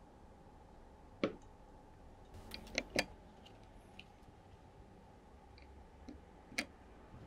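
Scattered light clicks and taps of hands handling a spray-paint can and a painted plastic Mini 4WD body on a cutting mat. One knock comes a little over a second in, a quick cluster around three seconds in, and another sharp one near the end.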